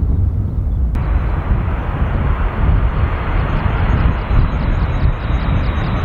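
Jet airliner engines heard loud and close as it passes: a heavy low rumble with a steady roar over it that comes in sharply about a second in.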